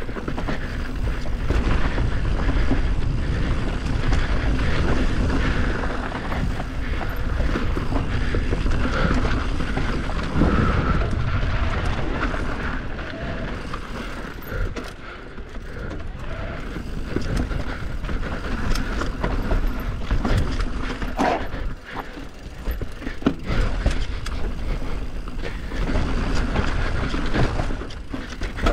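Bike ridden fast down a rough dirt enduro trail: a steady rumble of wind and tyres over the ground, broken by frequent knocks and rattles as the bike hits roots and rocks.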